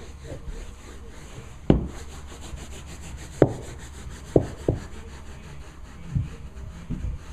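A small hand brush scrubbing carpet on a stair tread, with about six dull knocks at irregular intervals as the brush hits the step.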